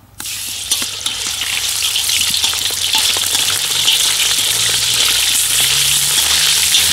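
Duck breast sizzling in a hot wok: the frying starts suddenly as the meat goes in and gets louder about a second later, a steady loud sizzle with small ticks as the pieces are moved about with a metal skimmer.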